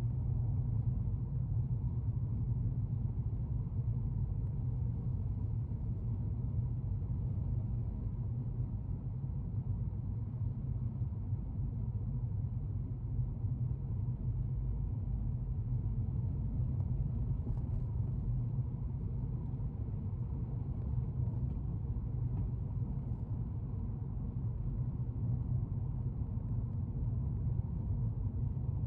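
A car driving along, with a steady low rumble of road and engine noise heard from inside the cabin.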